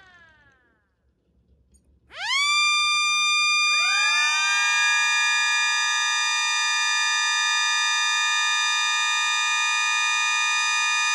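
Electric mini sirens winding down and falling silent. About two seconds in, they spin up again, more joining just before four seconds, and they settle into a steady, unwavering chord of several tones.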